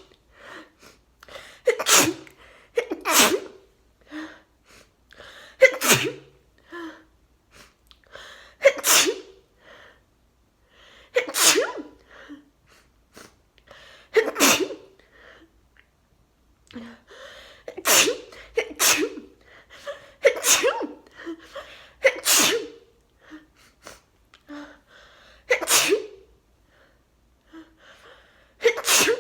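A person sneezing into a face mask in a sneezing fit: about a dozen sharp sneezes, one every few seconds and sometimes two close together, with quieter breaths between them.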